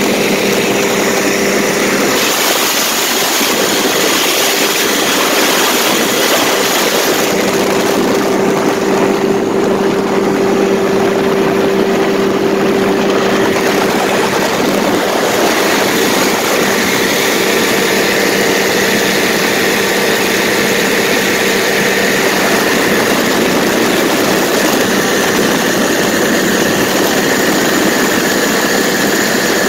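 Paramotor engine and propeller running steadily in flight, with wind noise over the microphone.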